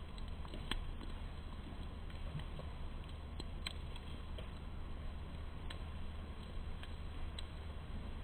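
Quiet outdoor ambience: a steady low hum with about half a dozen sharp ticks at irregular intervals.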